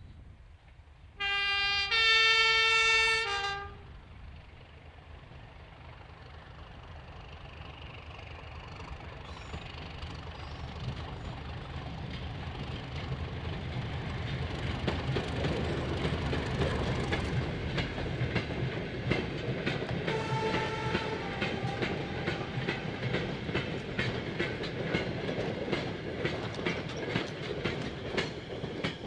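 Class 31 diesel locomotive sounding its two-tone horn, a low note, a longer high note and the low note again. Then its English Electric V12 diesel engine grows louder as it hauls a train of goods vans past, with the wagon wheels clicking over the rail joints.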